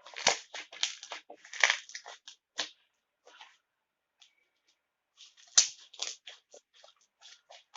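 Homemade slime being squeezed and stretched by hand, giving runs of short crackling pops: a dense run over the first few seconds, a pause of about two seconds, then another run near the end.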